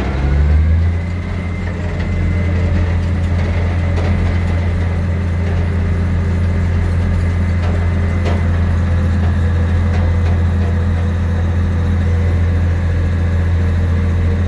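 Bulldozer's diesel engine revving up in the first second, then running steadily at high throttle while the dozer tracks loose fill up a slope.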